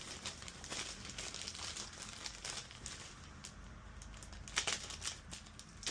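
Packaging crinkling and rustling in irregular little crackles as it is handled and opened, with a couple of louder clicks near the end.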